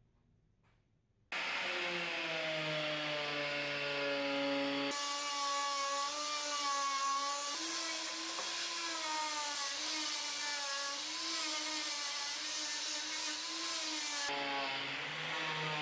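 Angle grinder with a felt buffing wheel polishing a metal motorcycle fork leg: the motor starts suddenly about a second in and runs with a whine that wavers in pitch as the wheel rubs on the metal.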